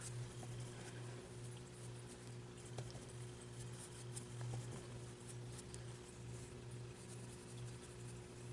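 Faint scratching and light ticks of a makeup brush working face paint and being handled, over a steady low electrical hum.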